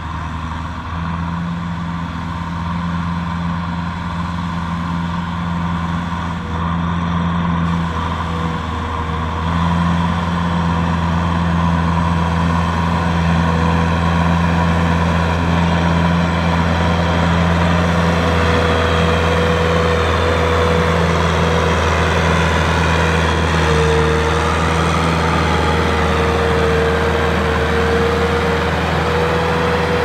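Farm tractor's diesel engine running steadily as it pulls a trailer loaded with sacks of rice, getting louder about ten seconds in. A steady higher whine joins in during the second half.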